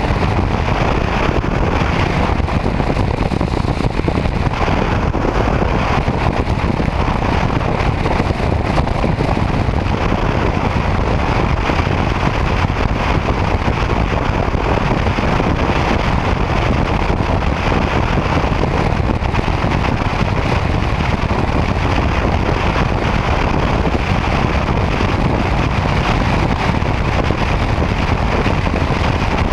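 Steady wind rush and road noise of a touring motorcycle cruising at highway speed, with wind buffeting the microphone.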